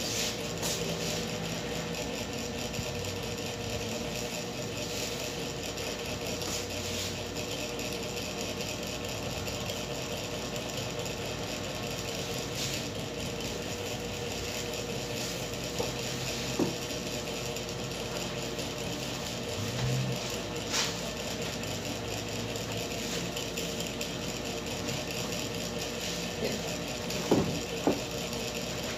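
Electric hair clipper running with a steady mechanical buzz while trimming hair. A few light knocks come near the end.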